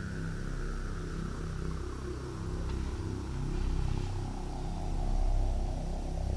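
Steady low rumble, with a faint whine gliding down in pitch near the start.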